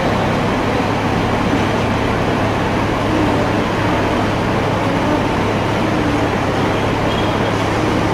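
Hong Kong double-decker trams and street traffic: a steady, unbroken rumble with a constant low hum.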